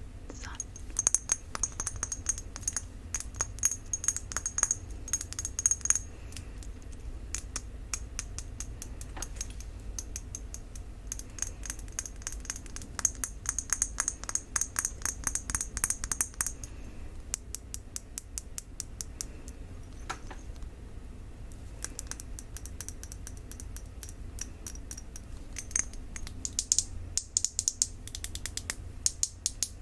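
Fingernails tapping rapidly on a glass Pure Grace perfume bottle, in quick runs of crisp clicks with a high ring under some runs. The taps thin out for a few seconds past the middle, then pick up again.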